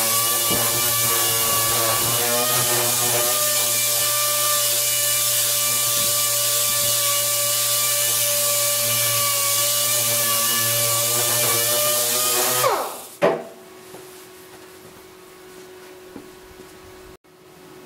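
Pneumatic dual-action (DA) sander running steadily against a sheet-metal panel, sanding it to prep it for paint. About 13 seconds in the air is cut and the sander spins down with a falling whine. A short knock follows, then only a faint steady hum.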